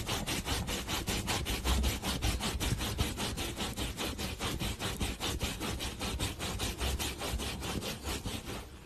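A pug digging at fabric upholstery with its front paws, its claws scratching in a fast, even rhythm of about five strokes a second.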